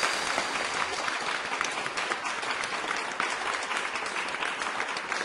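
Applause: many hands clapping in a dense, irregular patter, easing slowly down in level.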